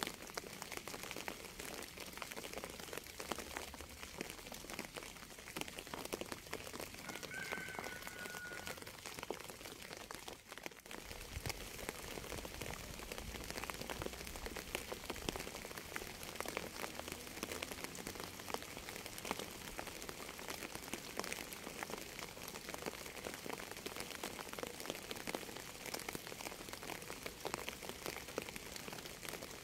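Steady rainfall, a dense hiss of countless drops landing on a surface, with level dipping briefly about ten seconds in.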